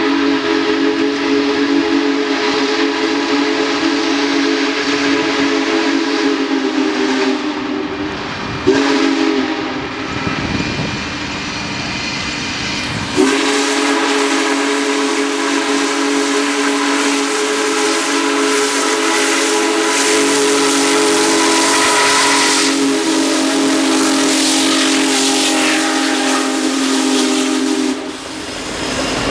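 Union Pacific 4014 Big Boy steam locomotive's whistle blowing a steady multi-note chord: a long blast, a short one about nine seconds in, then another long blast from about thirteen seconds in that cuts off near the end, over a steady hiss of steam from the working locomotive.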